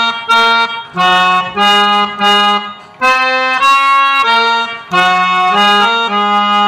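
Harmonium playing a slow bhajan melody note by note, the reed tone stepping from pitch to pitch with short breaks between notes.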